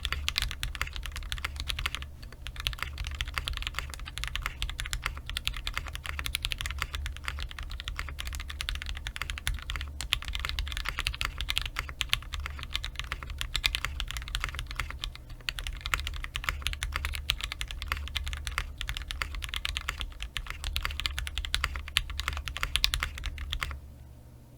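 Steady fast typing on a 60% mechanical keyboard with lubed and filmed Durock L7 linear switches, a brass plate, foam inside and GMK Cafe keycaps. Keys bottom out hard in a dense stream of keystrokes, with brief lulls, over a low steady hum. The typing stops about a second before the end.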